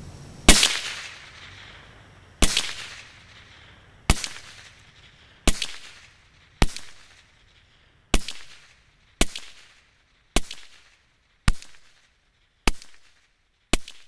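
Ruger 10/22 semi-automatic .22 LR rifle firing Winchester M-22 rounds: eleven single sharp shots about one to two seconds apart, each with a short echo tail. The shots come slightly quicker toward the end.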